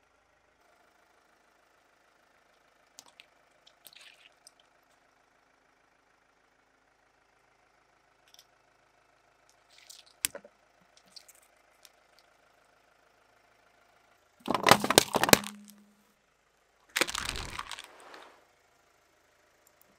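Car tyre crushing objects on asphalt: a faint steady engine hum with a few small cracks and pops, then two loud crunches about two-thirds of the way through and again a couple of seconds later, as aluminium drink cans are crushed flat under the tyre.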